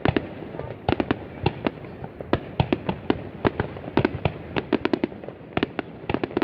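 Fireworks display going off: a rapid, irregular string of sharp bangs, several a second, over a steady din.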